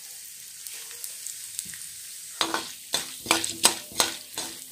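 Mustard seeds, chana dal and urad dal sizzling faintly in hot oil in a kadai. About halfway in, a metal spatula starts stirring and scraping the pan in quick strokes, about three a second, and the pan rings under each one.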